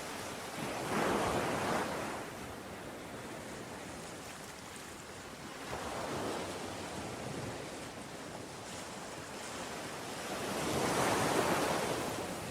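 Ocean waves breaking and washing in over steady surf noise, with a bigger wave about a second in, a smaller one around six seconds, and another big one near the end.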